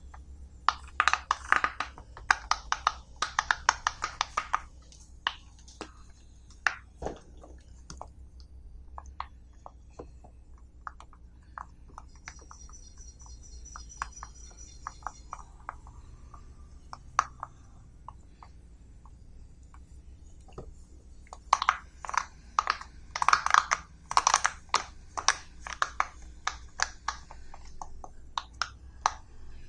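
Silicone pop-it fidget toy bubbles being pressed through by fingertips, a string of quick soft pops. The pops come in two fast flurries, near the start and again about three quarters of the way in, with scattered single pops between.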